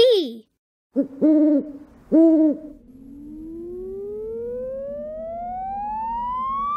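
Cartoon owl hooting twice, about a second apart, followed by a long sound-effect tone gliding steadily upward for about four seconds over a low steady hum.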